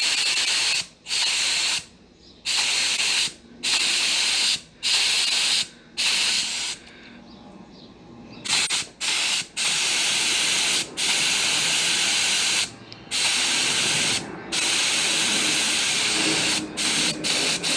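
Compressed air hissing out of a blow gun on a homemade two-fridge-motor compressor, in repeated bursts of about a second with short gaps, then longer blasts of several seconds. The tank is being bled down to the pressure switch's 30 psi cut-in point.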